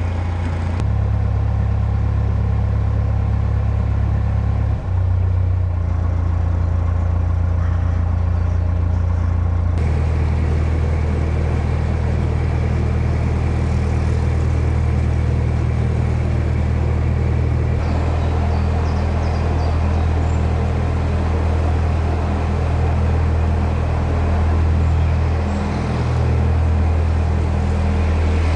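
Narrowboat engine running steadily under way, a low hum whose pitch and tone shift suddenly a few times.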